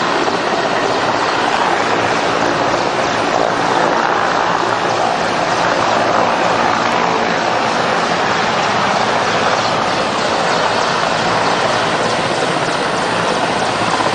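Mil Mi-17 helicopter's twin turboshaft engines and main rotor running, a steady, unbroken noise.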